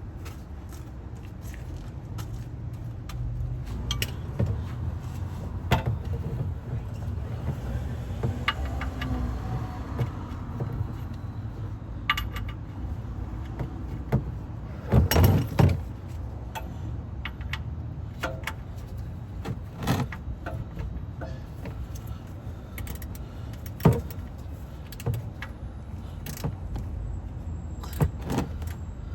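Scattered metallic clinks and knocks of hand tools and parts being handled under a car during an oil change, the loudest about halfway through, over a low steady rumble.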